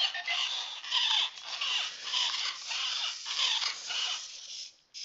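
Program-a-bot toy robot's small speaker giving a run of high, squeaky electronic chirps in short bursts, about two or three a second, some sliding in pitch, as the robot moves its arms in interaction mode; the chirps break off briefly near the end.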